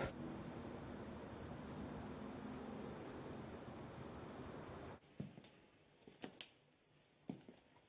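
Crickets chirping at night, a pulsing high trill over a steady hiss, as outdoor ambience. It cuts off abruptly about five seconds in, leaving a quiet room with a few faint taps.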